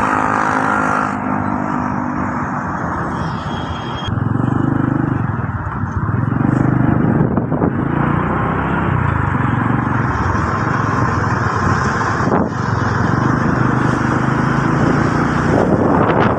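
Motor vehicle engine running, with wind and road noise, while riding along a busy city road. The engine comes up louder about four seconds in as it speeds up.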